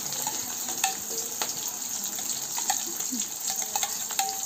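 Chopped onions sizzling steadily in hot oil in a kadhai. A spoon clinks and scrapes against a glass dish several times.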